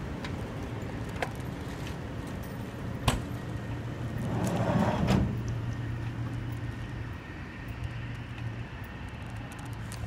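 Street ambience with a steady low hum of traffic. A single sharp knock comes about three seconds in, and a brief rush of noise swells and fades around the middle.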